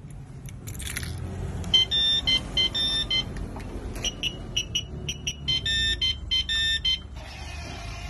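Remote-controlled parking lock's built-in alarm beeping: a high electronic tone in quick, uneven bursts from about two seconds in until about seven seconds, over a low rumble.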